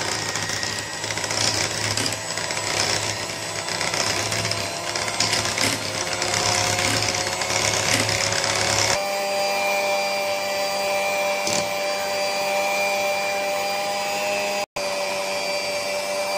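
Electric hand mixer running steadily, its whirring beaters whipping cream in a plate. The sound shifts about nine seconds in and cuts out for an instant near the end.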